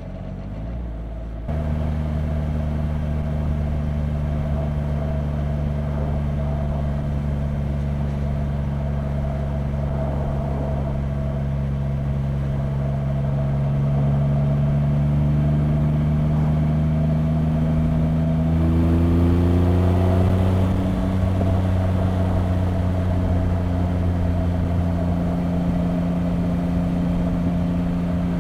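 2025 Triumph Rocket 3 R Storm's 2.5-litre inline-three engine with stock exhaust, running under way on the road. The note comes in louder about a second and a half in, climbs slowly in pitch over the middle, then holds steady.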